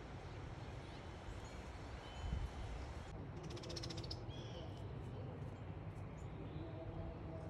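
Small backyard songbirds calling: a rapid high trill about three seconds in, followed by a short chirp, with a few faint chirps before it. A steady low background rumble runs underneath.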